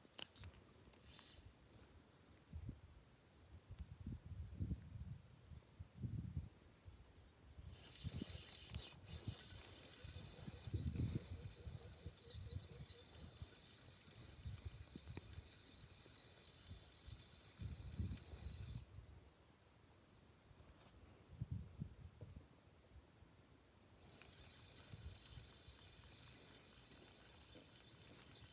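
Insect chirring in a high, rapidly pulsing band that starts about eight seconds in, stops about eleven seconds later and starts again near the end, with sparser chirps before it. Irregular low rumbles run underneath.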